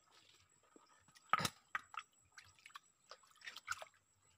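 Small splashes and drips of water as a hand works through a shallow, rocky stream, picking up snails. The splashes come irregularly, and the loudest is about a second and a half in.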